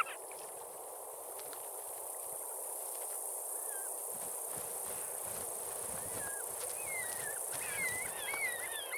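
Short falling bird chirps, a few at first and then coming more often and in quick pairs in the second half, over a steady outdoor hiss.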